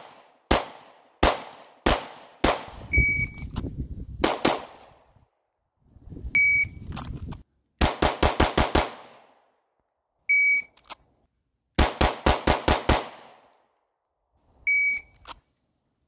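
Handgun fire: five single shots about half a second apart, then two fast strings of about six shots each, near the middle and toward the end. Before the shooting resumes, four short, steady high beeps sound, the kind a shot timer gives to start a timed string.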